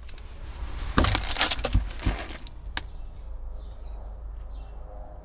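A quick run of sharp clicks and metallic clatter from a hand crimping tool and a small crimp connector being worked on a wire, followed by quieter handling of the wire and connector.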